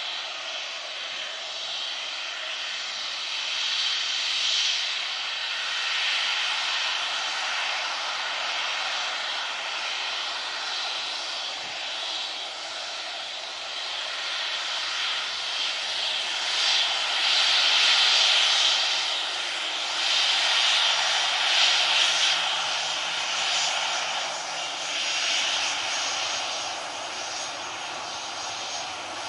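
Jet engines of a Boeing 737-800 (CFM56 turbofans) running as the airliner rolls slowly along the runway: a steady whining rush that swells and is loudest about two-thirds of the way through as it passes closest.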